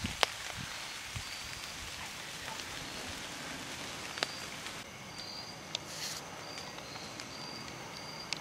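Quiet outdoor ambience: a steady hiss with a few sharp ticks, the loudest just at the start. A short, high chirp repeats about twice a second, plainest from about five seconds in.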